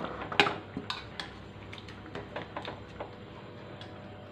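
Metal spatula clinking against a steel plate as fried cauliflower florets are pushed off it into a pan of gravy: one sharp clink about half a second in, then a few lighter taps and clicks.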